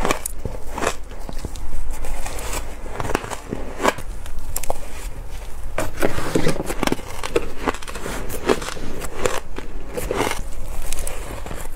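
Shaved ice being bitten and chewed: a run of irregular crisp crunches.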